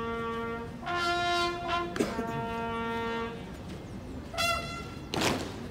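Military bugle call sounding honours: three held brass notes one after another, then a short higher note, followed by a brief sharp noise near the end.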